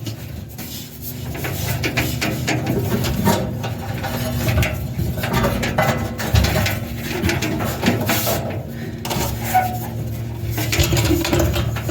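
Irregular clanks, clicks and rattles of metal dryer parts being handled while a drive belt is worked around the drum and idler pulley, over a low steady hum.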